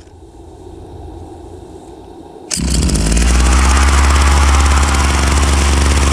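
Hitachi Koki CG22EB brush cutter's small two-stroke engine, fitted with an aftermarket replacement carburetor, starting suddenly about two and a half seconds in and then running loud and steady with a fast, even firing rhythm.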